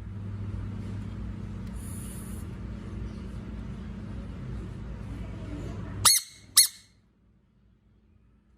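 Frog sounds: a steady, noisy rasping sound with a low hum for about six seconds that cuts off suddenly, then two sharp, high-pitched squeaks about half a second apart.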